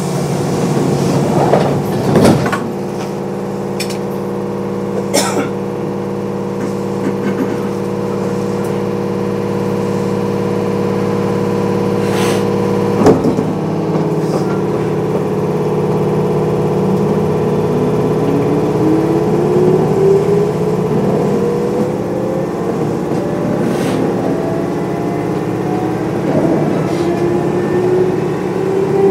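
Kintetsu 8800 series field-phase-control electric train standing at a station, its onboard equipment humming steadily. Doors close with a thump about halfway through, then the train pulls away with a steadily rising traction motor whine.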